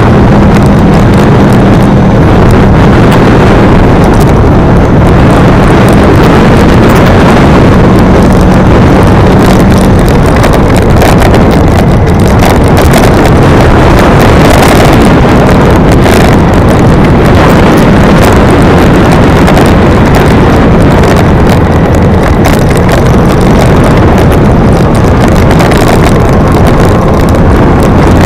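Vehicle engine running steadily under loud wind rushing over the microphone while driving uphill. A steady engine tone stands out for the first ten seconds or so, then sinks into the noise.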